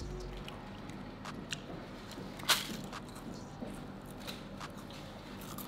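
A crisp pappadam being broken and crunched while eating, with scattered crackles and one sharp, loud crack about two and a half seconds in.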